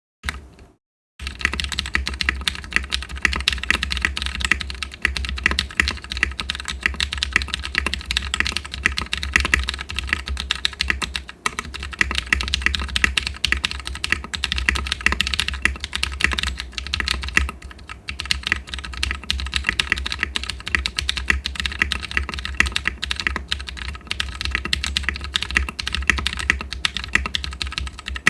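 Custom mechanical keyboard with lubed Cherry MX2A Purple tactile switches on an aluminium plate and DCS keycaps, typed on quickly and continuously. The keystrokes start about a second in and run on with only a few brief pauses.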